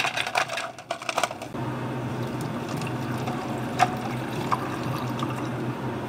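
Ice cubes clattering off a scoop into a plastic cup for about a second and a half, then water poured steadily from a plastic pitcher over ice into plastic cups, with an odd clink of shifting ice.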